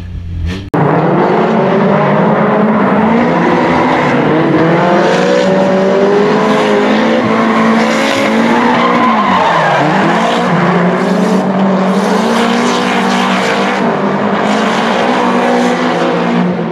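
Nissan S13 drift cars sliding: the engines rev up and drop again and again over continuous tyre squeal. The sound cuts in sharply about a second in.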